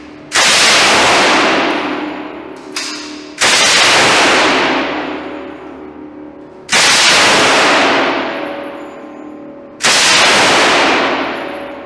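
M249 SAW light machine gun firing four short bursts of automatic fire about three seconds apart. Each burst starts suddenly and rings out for a couple of seconds in the echoing indoor range.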